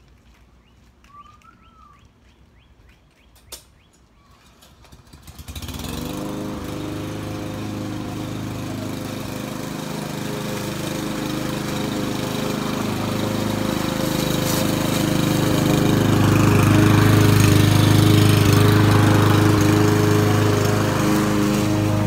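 Gasoline push lawn mower engine starting about five seconds in, then running steadily and growing louder as the mower comes toward the microphone.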